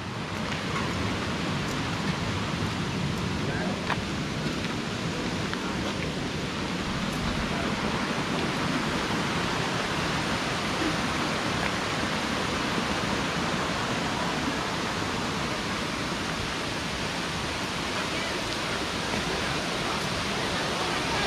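Steady rush of falling water from a small stone weir and a rocky waterfall, an even hiss with a few faint clicks.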